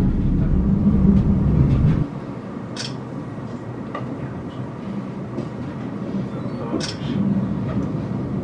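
Rhaetian Railway Bernina Express running, heard inside its panoramic coach as a loud low rumble that drops off abruptly about two seconds in to a quieter, steady running noise. Two brief high hissing sounds come a few seconds apart.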